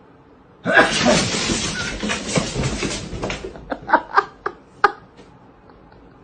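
A person laughing hard. It starts suddenly and loudly, then trails off into a handful of short, separate laughs that fade.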